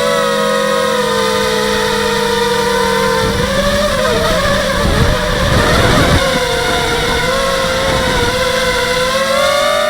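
H250 mini quadcopter's brushless motors and propellers whining steadily in flight. The pitch dips about a second in, wavers and splits with a low rumble through the middle as the throttle shifts, and rises again near the end.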